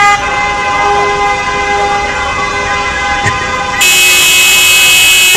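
Several car horns held in long steady blasts, overlapping, from a slow-moving car convoy. About four seconds in, a louder hiss with a high steady tone suddenly cuts in.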